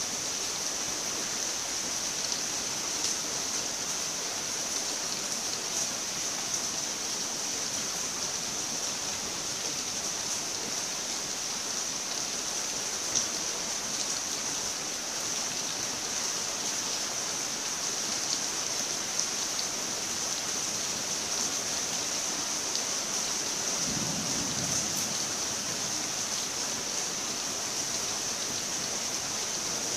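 Steady rain: an even hiss with the fine patter of individual drops. A brief low rumble comes about three-quarters of the way through.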